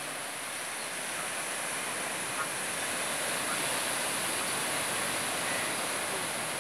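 Ocean waves breaking and washing over a flat rocky shore shelf, a steady rushing surf that swells slightly about a second in.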